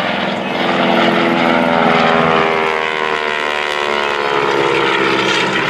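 North American SNJ Texan flying past, its Pratt & Whitney R-1340 radial engine and propeller running loud and steady. The engine's tones slide down in pitch as the aircraft passes.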